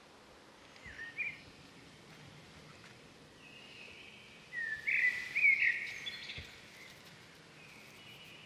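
Birds calling: a short chirp about a second in, then a louder run of quick whistled notes in the middle, over a faint steady outdoor background.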